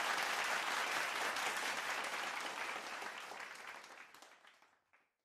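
Crowd of guests applauding, slowly fading out until it is gone about five seconds in.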